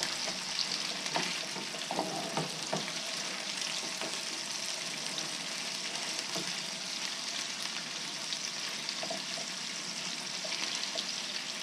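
Cubes of redfish sizzling steadily in shallow cooking oil in a skillet. A slotted spatula scrapes and knocks against the pan as the pieces are turned over, a few times about a second in and again near the end.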